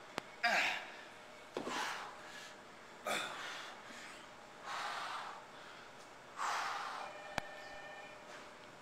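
A woman breathing hard in forceful puffs, about one every second and a half, the heavy breathing of exertion while lifting and flexing. Two short clicks, one right at the start and one near the end.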